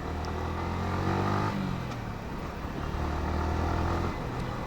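Yamaha R15 V4's 155 cc single-cylinder engine running under way. Its note holds steady, falls about a second and a half in, pulls steadily again, then eases off near the end.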